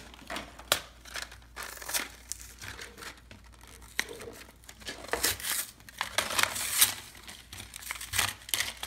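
Toy packaging being torn open and crinkled by hand, irregular crackles, rips and clicks, loudest between about five and seven seconds in.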